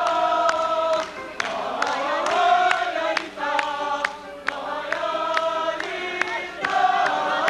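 A room of wedding guests singing together in chorus, men's and women's voices mixed, with short sharp clicks scattered through the singing.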